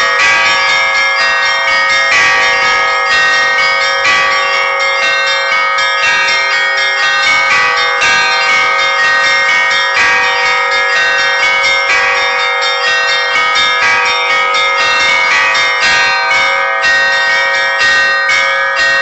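Church bells ringing a fast, continuous peal: many bells struck in quick succession, their tones overlapping and ringing on.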